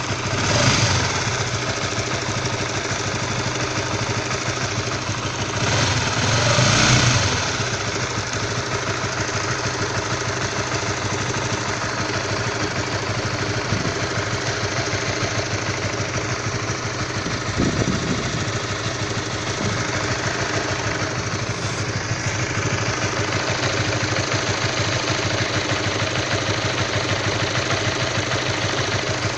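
Honda CB150R's single-cylinder 150 cc engine idling with a rough, knock-like sound, which the owner says appears when the engine is cold. The throttle is blipped briefly about a second in and again around six to seven seconds in.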